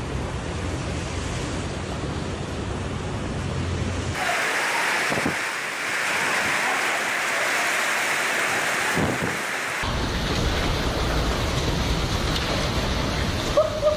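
Heavy rainstorm with wind buffeting the microphone: a steady rush of noise that changes abruptly about four and ten seconds in, as separate recordings are cut together.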